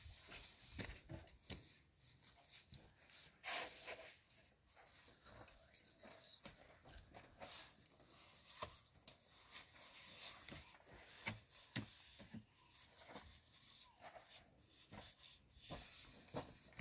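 Faint, scattered scrapes and taps of stones being handled and set while building a stone wall, with a few sharper knocks.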